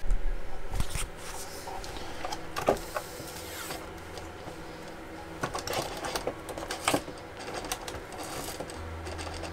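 Scattered plastic clicks and knocks as a 1/10 RC truck is handled upside down and a wheel is worked on by hand, over a faint steady hum.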